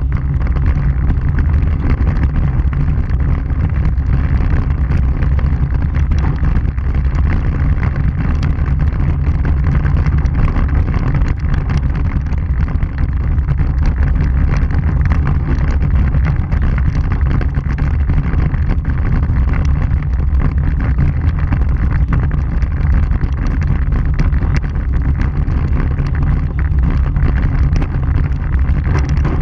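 Vehicle driving on a gravel dirt road, heard from a camera on its front bumper: a steady low rumble of tyres and engine with wind on the microphone and frequent small ticks.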